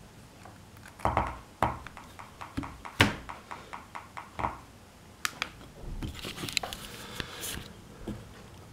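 A string of sharp clicks and knocks, about a dozen over a few seconds, from a hand handling a cable and its plug, followed by a short stretch of rustling.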